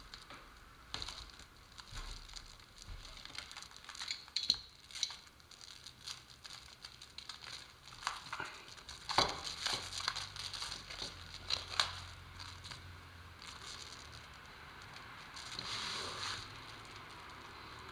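Plastic sheeting being handled and worked by hand: irregular crinkling with scattered light clicks and taps, and a longer rustle about sixteen seconds in.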